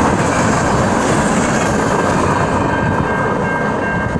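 Train passing close by: a loud, steady rumble of wheels on rails, with a thin steady high-pitched tone over it.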